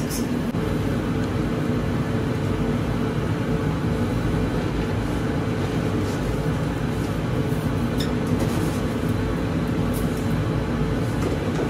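Steady drone of a commercial kitchen's gas range and exhaust ventilation, with a constant hum and a few faint clicks.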